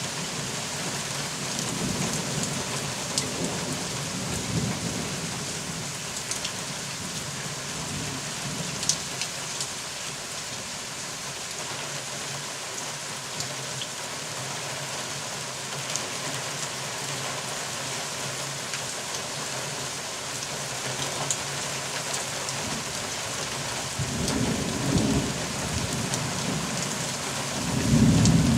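Steady rain falling during a thunderstorm, with low rumbles of thunder early on and again near the end, the last one the loudest.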